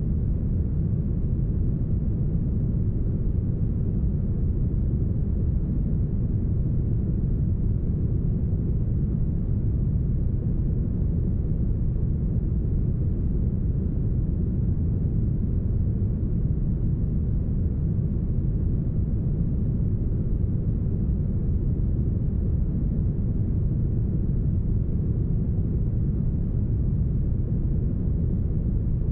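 Deep, smoothed brown noise: a steady, even low rumble with no high hiss.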